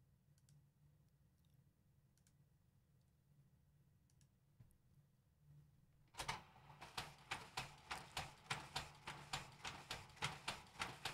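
Epson FastFoto photo scanner feeding a stack of snapshots through its document feeder at 300 DPI, about one print a second: a rapid, even run of clicks, about three or four a second, that starts about six seconds in after near silence.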